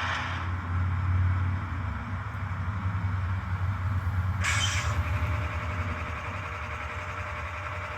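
An H0 scale ES44AC model locomotive's sound decoder, played through its small speaker, running the diesel prime mover with a low, steady throb. A steady hiss, the radiator fans, cuts out just after the start, and a short burst of air hiss comes about four and a half seconds in.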